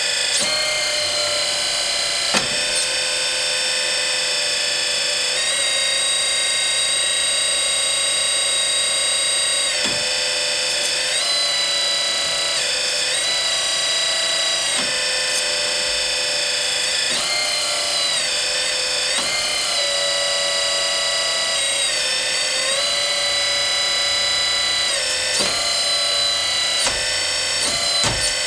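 The hydraulic pump of a Kabolite K350-200 RC excavator is whining. Its pitch steps and glides up and down at irregular moments as the hydraulic functions are worked, with a few sharp clicks.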